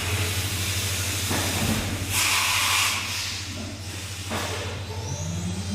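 CNC machine running: a steady low hum with bursts of hissing, loudest about two seconds in, and a motor whining up in pitch near the end.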